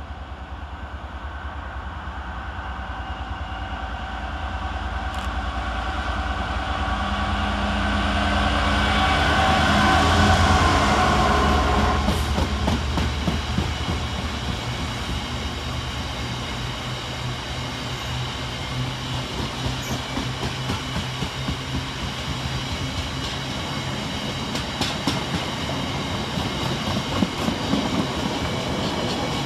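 GB Railfreight Class 66 diesel locomotive passing, its EMD two-stroke engine growing louder to a peak about ten seconds in. A long rake of loaded-looking open box wagons then rolls by with a steady clatter of wheels clicking on the rails.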